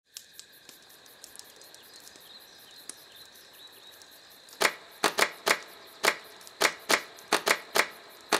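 Faint high steady tone with scattered soft ticks, then from about halfway in a run of sharp, loud clicks, about a dozen at roughly three a second, leading into the soundtrack's music.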